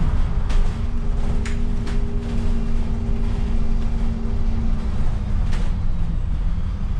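Alexander Dennis Enviro400 City double-decker bus heard from inside on the move: a steady low engine and road rumble with occasional knocks and rattles from the body. A steady whine sounds from about a second in until about five seconds.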